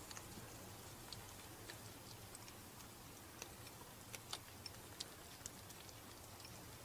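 Faint, irregular clicks and ticks of baby ferrets eating dry kibble from a ceramic bowl, the pellets knocking against the bowl and each other, over a low steady hiss. The clicks come more often and louder around four to five seconds in.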